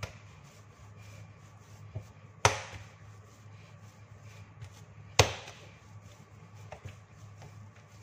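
Pandesal bread dough being kneaded by hand on a granite countertop, with two loud, sharp slaps about two and a half seconds apart as the dough hits the counter, and a few softer knocks between them.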